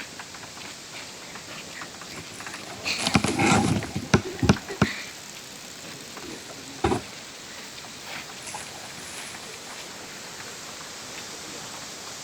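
Steady rush of falling water from a waterfall close by. About three seconds in comes a cluster of loud knocks and bumps lasting two seconds, and one more sharp knock near seven seconds.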